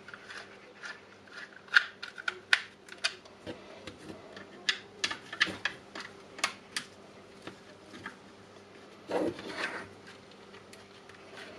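Hand screwdriver turning screws into the plastic housing of a Milwaukee M18 battery pack: irregular sharp clicks and ticks of the screwdriver and the handled case, with a brief rubbing scrape about nine seconds in.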